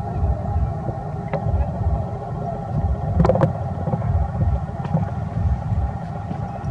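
Steady low rumble, with a couple of sharp clicks a little past the middle.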